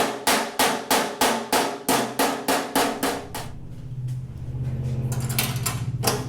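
Hammer striking 18-gauge sheet steel backed by a dolly, sharp metallic blows at an even pace of about three a second, working out a dimple at a joggle joint. After about three and a half seconds the hammering stops and a steady motor hum takes over, ending in one more sharp strike.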